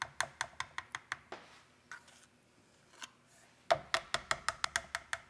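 Metal measuring spoon tapped rapidly against the rim of a glass measuring cup to knock off sticky vegetable base paste: quick, even clicks about five a second. They stop a little over a second in and start again near the end with a sharper tap.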